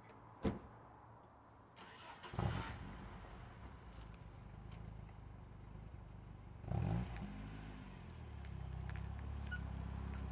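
A car door shuts, then a BMW E30 318i's inline four-cylinder engine cranks and catches about two and a half seconds in and settles to idle. It gives a brief rev near seven seconds, and the engine note rises as the car pulls away near the end.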